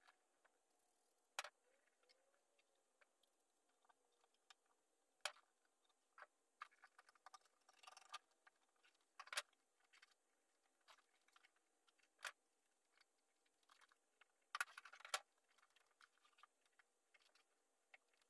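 Faint, scattered clicks and taps from hand work on the car body, spread unevenly over near silence. A brief rustle comes about eight seconds in, and a quick pair of louder clicks comes near the end.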